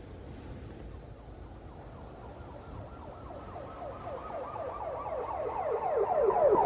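Police siren in a fast yelp, sweeping in pitch about four times a second and growing steadily louder, over a low road rumble.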